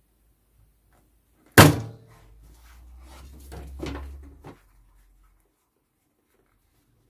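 A single loud thunk about one and a half seconds in, followed by a low rumble and a few softer knocks over the next three seconds.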